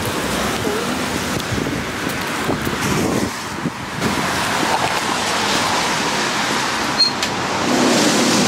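City street noise while walking: steady traffic rush and wind buffeting the microphone.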